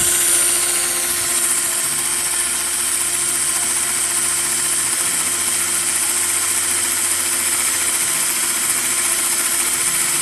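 Drill spinning an Oregon sharpening stone against a chainsaw chain's cutters: a steady whine with a high grinding hiss as the teeth are sharpened.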